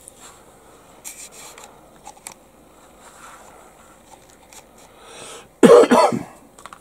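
A person sneezing once, short and loud, about five and a half seconds in, just after a brief rising intake of breath. Before it, faint clicks and rustles of a plastic model-kit sprue being handled.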